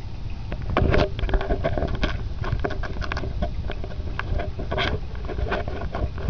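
Close-up handling noise as a cat bats at a camera's string and the camera itself: a steady low rumble with many irregular clicks and scrapes, loudest about a second in.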